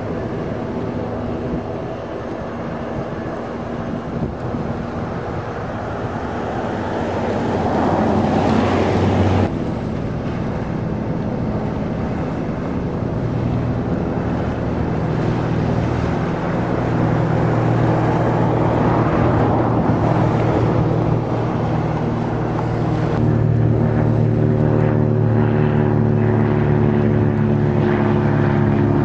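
Boat engines running fast on open water, among them the outboard motors of small open skiffs and the engine of a larger fishing boat. A louder, rising passage cuts off suddenly about nine seconds in, and a stronger, deeper engine hum sets in later on.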